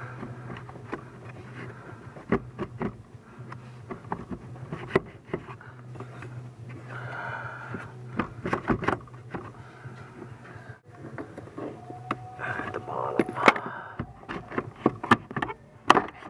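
Hands and a socket tool working inside a car's plastic heater core case: scattered clicks and knocks, with scraping patches about seven seconds in and again near the end, over a steady low hum.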